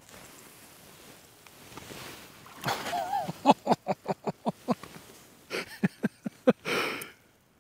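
A freshly caught perch flapping on the ice: a quick run of sharp slaps, about four a second, then a few more, with a short wavering voice sound just before they start.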